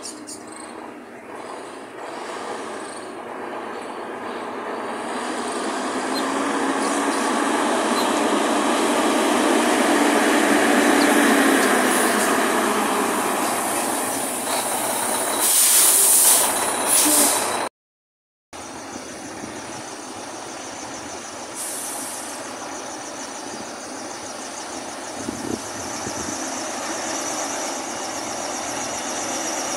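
Heavy diesel semi-truck pulling a loaded trailer approaches slowly, its engine growing louder as it nears, with short loud bursts of hiss about two-thirds of the way through. After a cut, a second loaded semi-truck's diesel engine is heard running steadily, with a high whine over it.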